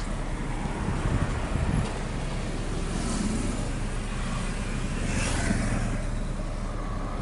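Car driving on a town street, heard from inside the cabin: a steady engine rumble and tyre and road noise, with a brief swell of noise about five seconds in.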